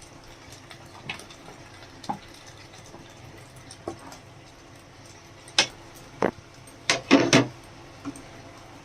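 A spatula and pieces of chicken knocking against a cooking pan as the chicken is added to the gravy and stirred: scattered single clacks, then a quick run of louder knocks near the end.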